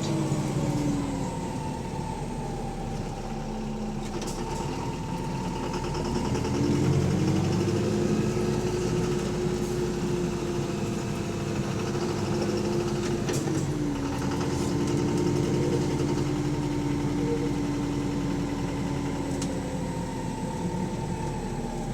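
Bus diesel engine running while the bus drives, its pitch falling at first, rising as it pulls away about six seconds in, then dropping back about fourteen seconds in. A heavy knocking runs through it, which the uploader takes for rod knock from a worn connecting-rod bearing.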